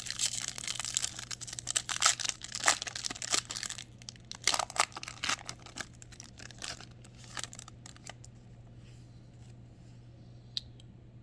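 A baseball card pack wrapper being torn open and crinkled for about four seconds, then sparser crackles and ticks that die away about eight seconds in. A low steady hum runs underneath.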